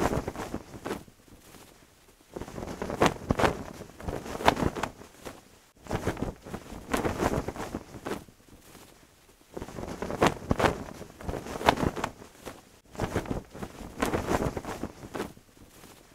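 A cloth flag flapping in the wind: irregular flutters and snaps that come in gusts of a few seconds, with short lulls between.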